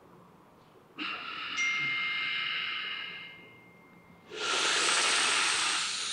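Loud ujjayi pranayama breathing: a breath in, with a whistling edge, starts about a second in and fades, then a long hissing breath out follows from about four seconds in.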